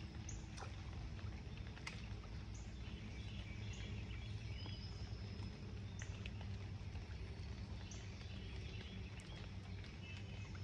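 Lakeside ambience: a low steady rumble under short, high bird chirps that come every second or two, with a few faint clicks.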